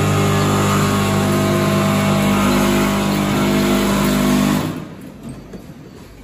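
Vibratory feeder of a snack packing line humming steadily, with corn sticks rattling through its stainless steel tray. About four and a half seconds in, the sound drops off sharply to a faint background.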